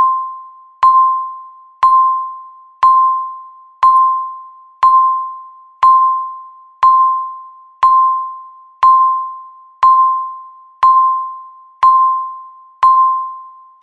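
Countdown timer beeping once a second: a single clear electronic ding, the same pitch every time, each struck sharply and ringing away before the next. Fourteen beeps in a row, each marking one second left on the countdown.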